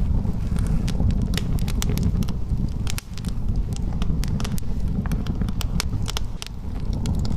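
Wood fire burning in a fireplace: many sharp crackles and pops from the burning logs over a steady low rumble of flame.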